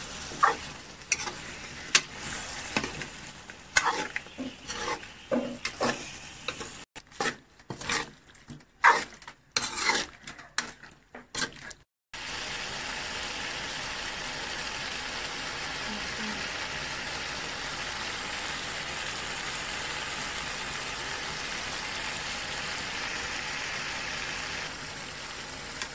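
Metal spoon scraping and clinking against an aluminium pot as chicken and potato masala is stirred and fried. After about twelve seconds the stirring stops, and the masala sizzles steadily in the pot.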